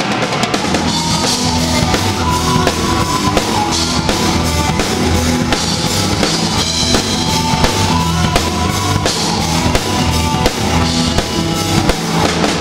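Live rock band playing loud, heard close to the drum kit: bass drum, snare and cymbals driving a steady beat over electric guitars and bass.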